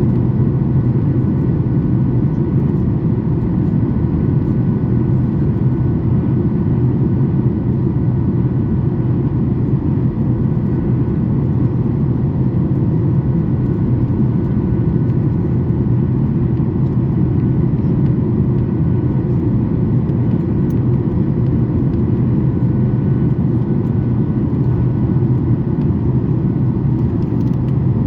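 Steady cabin noise inside a Boeing 737 MAX 8 in flight on descent: a constant low rumble of airflow and its CFM LEAP-1B engines, with faint steady whining tones above it.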